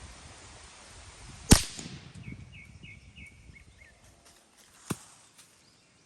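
A single shot from a Ruger 10/22 .22 rimfire rifle about a second and a half in, a sharp crack with a brief tail. A second, much quieter crack comes near the end, and a run of short high chirps falls between the two.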